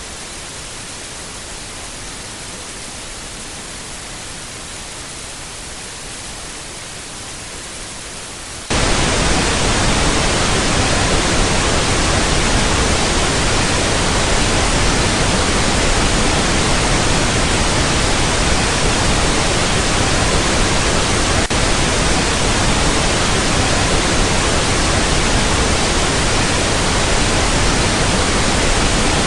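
Broadcast-style static hiss, steady at first, that jumps abruptly to much louder static about nine seconds in and holds there, like a transmission signal breaking down.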